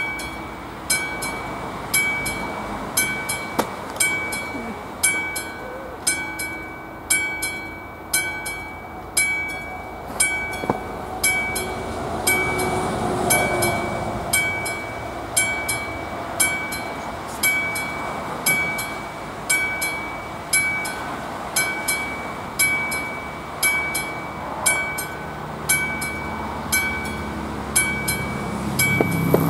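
Level-crossing warning bell, the classic bell on AŽD 71 signals, striking steadily about once a second. A passenger train passes over the crossing in the middle, adding a rumble of wheels on the rails.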